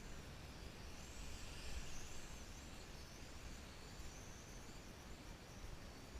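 VISUO XS809HW quadcopter's motors whining high and faint, the pitch wavering up and down as the throttle changes, loudest about a second or two in, over a low rumble of wind.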